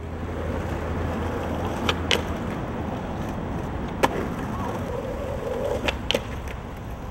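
Skateboard wheels rolling on asphalt, with several sharp wooden clacks of the board. Near the end a quick pair of clacks comes as the tail pops and the board hits the concrete ledge.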